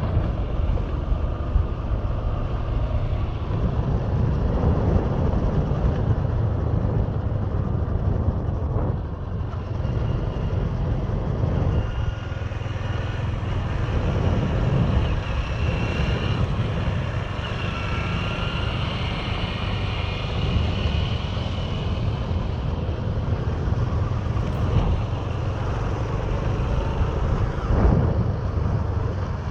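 Steady rumble of a vehicle on the move: road and engine noise, heaviest in the low end, running evenly throughout.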